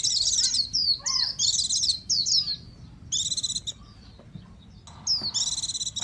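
A white-eye singing: bursts of fast, high, twittering warble, one after another, with a pause of about a second and a half near the middle before a last burst near the end.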